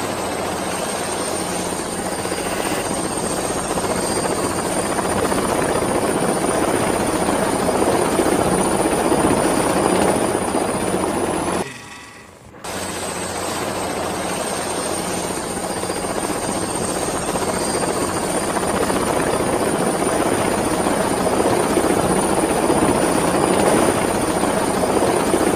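Helicopter flying sound effect: steady rotor and engine noise with a thin high whine, growing slowly louder. About halfway through it dips out for a moment and the same effect starts over.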